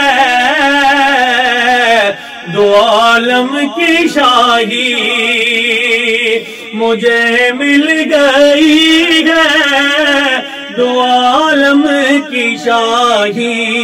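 A man singing a naat solo, drawing out long ornamented phrases with a wavering, gliding pitch, broken by short pauses.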